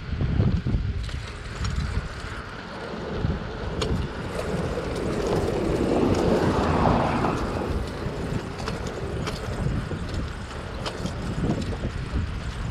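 Wind buffeting the microphone of a moving bicycle, with tyre and road noise over cracked concrete. A passing pickup truck swells in and fades away around the middle, loudest about six to seven seconds in.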